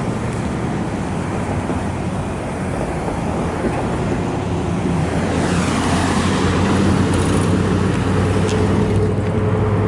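Freight train cars rolling past, a long string of autoracks, giving a steady rumble and rail noise. It grows louder with a rushing hiss from about five and a half seconds in.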